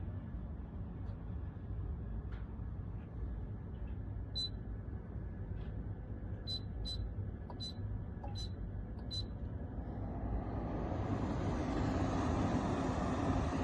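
Portable air conditioner humming low while six short high beeps sound from its controls as buttons are pressed. About ten seconds in, its fan spins up and the rush of air grows steadily louder.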